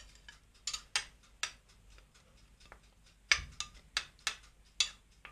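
Metal spoon clinking against a glass bowl while stirring thick tomato sauce: scattered sharp clicks, with a pause of about two seconds in the middle.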